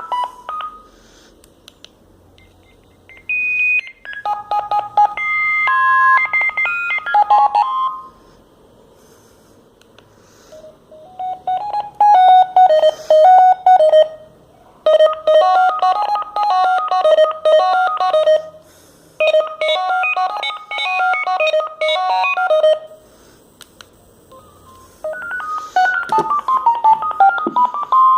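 Sagem MW 3022 mobile phone playing its built-in ringtones: electronic beeping melodies, one after another with pauses between them. One short tune plays early on, a second plays three times over with short gaps, and a new one starts near the end.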